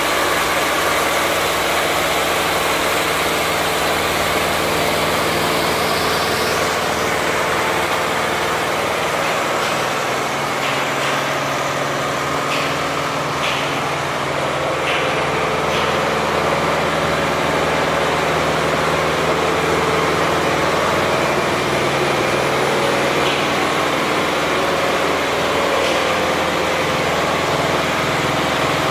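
Richpeace 20-head flat embroidery machine running at high speed (1200 RPM), a steady mechanical din of its stitching heads, with a few faint clicks about halfway through.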